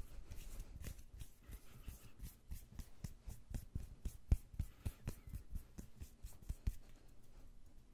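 Fast, close-miked ASMR hand sounds: palms and fingers rubbing and brushing against each other in an irregular run of soft skin-on-skin swishes and pats, several a second. The strongest pat comes a little past the middle.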